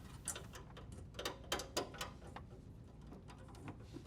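Scattered light clicks and taps, about a dozen of them, from parts being handled during the repair.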